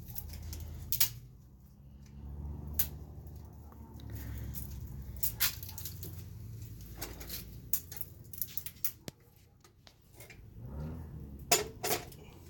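Scattered light metallic clicks and clinks from the stove's metal parts being handled, over a low rumble.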